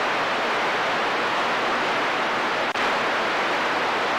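CB radio static: steady hiss from the receiver between transmissions, with a momentary dropout about two and a half seconds in.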